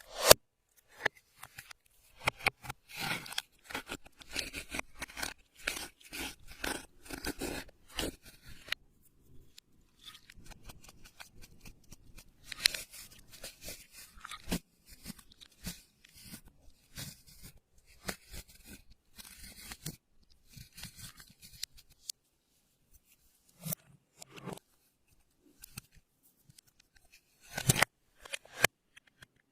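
Hands squishing and stretching slime, making crackling clicks and small pops as trapped air bursts. The clicks come thick and fast for the first several seconds, then more sparsely, with a sharp pop at the very start and another near the end.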